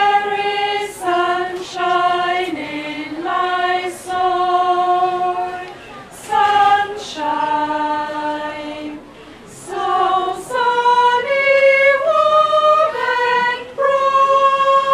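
Women's choir singing a cappella, in phrases of held notes with short breaks between them.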